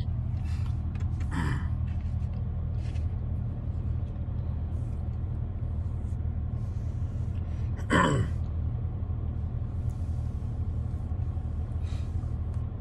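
Steady low rumble of a car cabin. Over it come two short breathy sounds from a man's voice, each falling in pitch: one about a second and a half in, and a louder one about eight seconds in.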